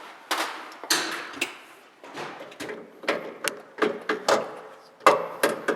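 Workshop clatter: a string of about a dozen irregular sharp knocks and clanks as parts and tools are handled.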